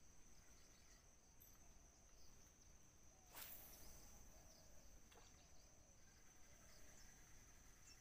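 Faint, steady high-pitched insect drone, broken about three and a half seconds in by a brief sharp swish as a spinning rod is cast, with a faint click under two seconds later.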